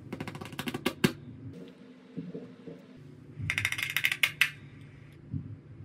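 Small hand tools and phone parts clicking and rattling during phone repair work: a quick run of rapid small clicks at the start and another about three and a half seconds in, with a few soft knocks between.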